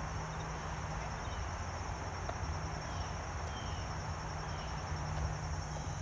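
Insects trilling steadily in a high, finely pulsing buzz, over a low steady hum, with a few faint chirps.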